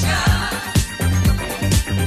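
Late-1970s disco music: a steady four-on-the-floor kick drum about two beats a second under a pulsing bass line, with synth or vocal melody above.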